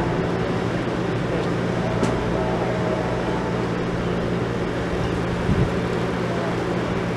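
Steady vehicle noise: a low, even engine hum under a constant rush of noise, with a short low thump about five and a half seconds in.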